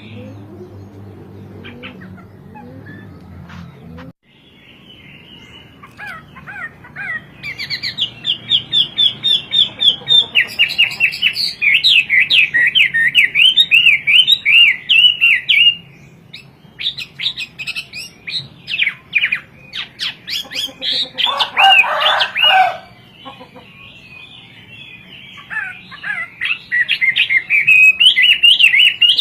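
Chinese hwamei singing: long, loud runs of rapid, repeated whistled notes, broken by pauses and varied phrases, some lower and fuller. For the first few seconds there is only a low steady hum with faint chirps, which cuts off abruptly about four seconds in before the song starts.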